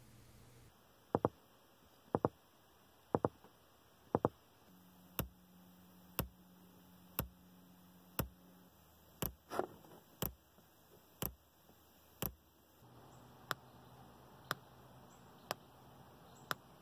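Truck's car-audio speakers playing a polarity-test pulse signal: sharp clicks about once a second, picked up as the speakers are checked one channel at a time with a polarity tester. A faint steady hum sits under the clicks for a few seconds in the middle.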